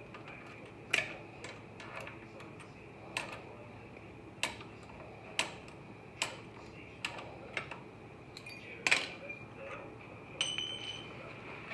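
Hand tools knocking and clicking against metal on the truck's front wheel hub: sharp, separate clicks at irregular intervals, roughly one a second, with the loudest knock about nine seconds in, over a faint steady high hum.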